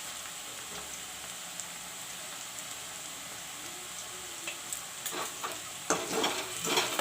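Onions and whole spices frying in hot mustard oil, a steady sizzle. From about five seconds in, a spatula starts stirring and scraping in the pan.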